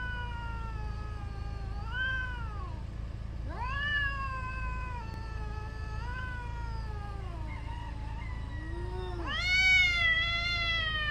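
Cats yowling in a territorial standoff: long, drawn-out, wavering howls that swell and rise in pitch about two, four and nine seconds in, the last one the loudest.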